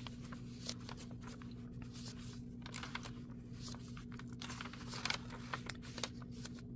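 Pages of a handmade paper junk journal being turned by hand: soft rustling and flips of stiff paper, with a couple of louder flicks about five and six seconds in. A steady low hum runs underneath.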